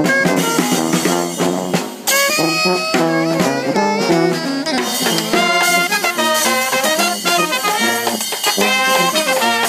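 New Orleans-style street brass band playing a jazz tune: saxophones, trumpet and trombone over a sousaphone bass line. About two seconds in, the music breaks off and jumps straight back in.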